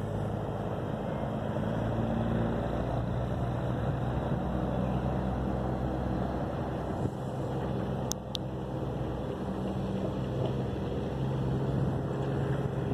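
A steady engine hum under a rushing noise, with a brief high chirp about eight seconds in.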